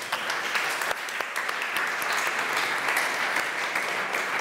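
A small audience applauding, a steady run of hand claps.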